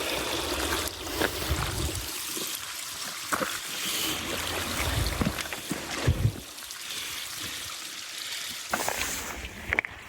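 A small hillside stream trickling and running over rocks, with a few low thumps in the first couple of seconds and again around the middle.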